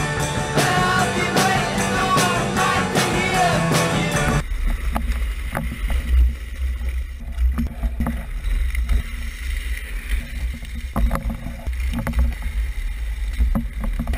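Rock music with singing for about four seconds, then cut off abruptly. After that, the on-board sound of a drift trike riding across asphalt: a steady low rumble of its hard-sleeved rear wheels and of wind on the mic, with scattered clicks and rattles.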